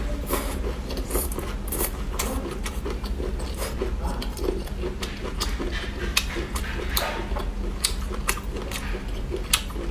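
Close-miked crunching and chewing of a hard, brittle food stick: irregular sharp crackles and crunches, over a steady low hum.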